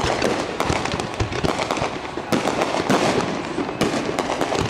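Aerial fireworks display: a rapid, continuous string of shell bursts and crackling, with deeper booms every second or so.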